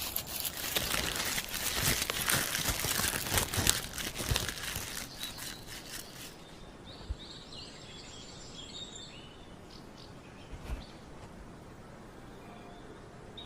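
Footsteps crunching and crackling through dry fallen leaves for about the first six seconds, then they stop and small birds chirp faintly.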